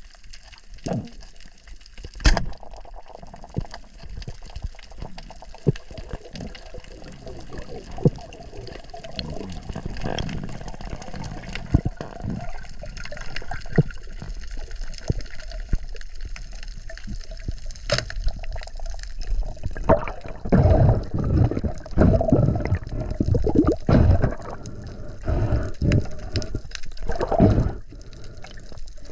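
Water sounds picked up by a diving camera: sloshing and bubbling with a few sharp clicks. From about two-thirds of the way through, the gurgling comes in louder, irregular surges.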